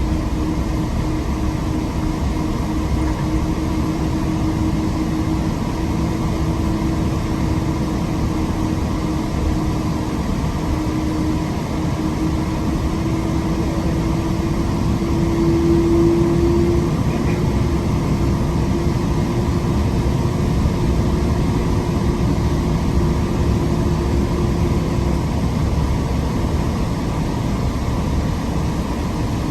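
Steady cabin noise inside a Boeing 777-200ER taxiing after landing: airflow and engine hum with a held low whine that swells about halfway through and fades near the end.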